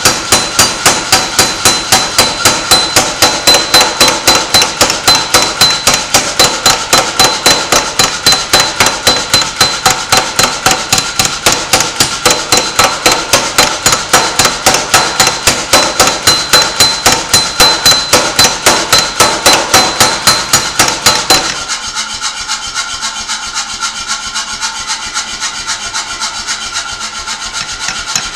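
Rapid, steady hammer blows, about four to five a second, on metal working copper sheet clamped in a vise, with a constant metallic ring over them. Some 21 seconds in the blows turn lighter and the ringing stops.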